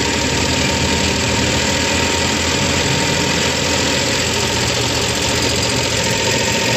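Diesel injection pump test bench running steadily, driving a DPA-type distributor fuel pump whose injectors spray fuel into graduated test cylinders during calibration. A steady mechanical running noise with a faint steady whine.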